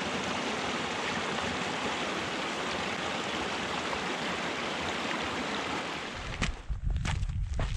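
Creek water rushing steadily. About six seconds in it fades and footsteps crunch on the trail.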